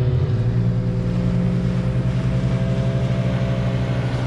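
Small boat's outboard motor running steadily under way, its note rising slightly just after the start.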